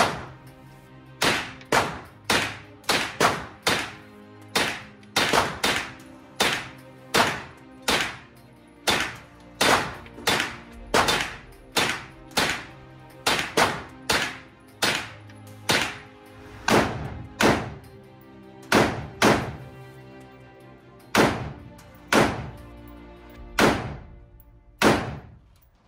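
Rifle shots fired one at a time in quick succession, about three dozen, roughly one to two a second with a short pause about two-thirds of the way through, each echoing in the indoor range.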